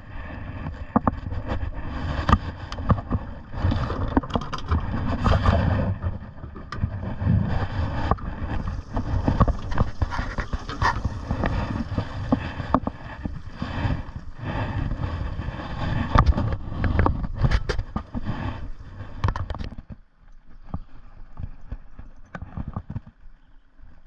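Irregular knocks, clatter and rustling of handling on a small fishing boat over a low rumble, dying down about twenty seconds in.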